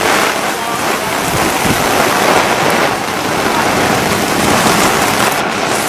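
Heavy rain and strong gusting wind, a loud, steady rushing noise.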